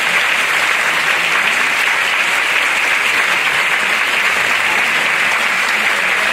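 Theatre audience applauding, a dense, steady clapping with no music.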